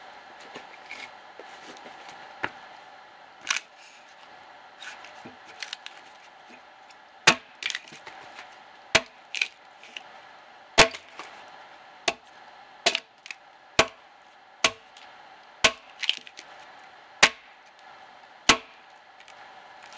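Axe blows hewing the side of a dead ash log, sharp chops into dry hardwood. A few scattered strikes at first, then a steady run of chops about one a second through the second half.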